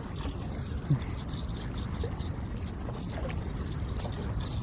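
Steady rushing of water flowing through the spillway, with a few faint short sounds about a second, two seconds and three seconds in.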